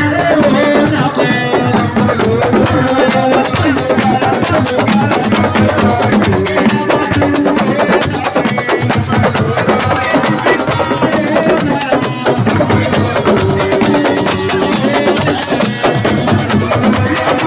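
Live Senegalese assiko band music: dense, steady drumming and percussion with a singing voice over it.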